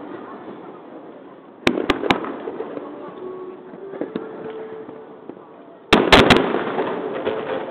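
Aerial fireworks shells bursting: three sharp bangs close together about a second and a half in, then a louder cluster of four bangs about six seconds in.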